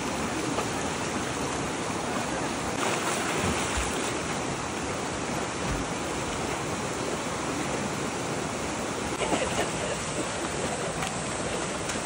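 Mountain stream water rushing steadily, with splashing from children kicking as they swim.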